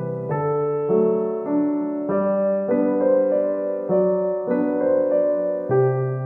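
Background piano music: a slow, gentle melody with a new note or chord about every half second.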